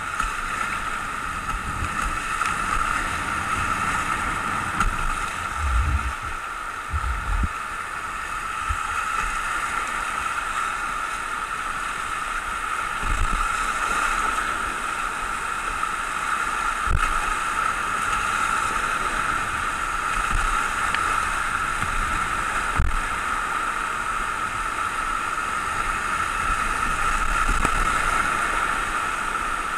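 Whitewater rapids rushing steadily around a kayak running them, water churning close by. A few short low thumps come at intervals, about a quarter of the way in, near the middle and later on.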